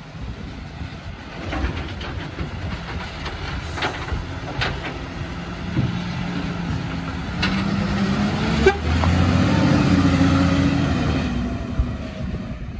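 Volvo FE side-loader garbage truck's diesel engine running while its automated arm empties a wheelie bin, with several sharp clunks of the bin and arm. About two-thirds through, the engine gets louder as the truck pulls away.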